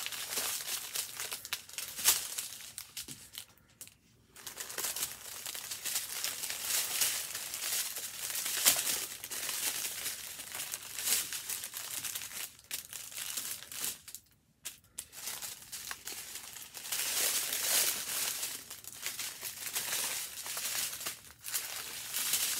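Plastic film crinkling and rustling as a rolled diamond-painting canvas under its clear protective sheet is handled and smoothed out by hand. There are short pauses about four and about fourteen seconds in.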